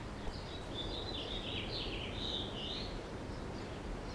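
Birds twittering in a quick, warbling run of chirps for a couple of seconds, over a steady low outdoor background noise.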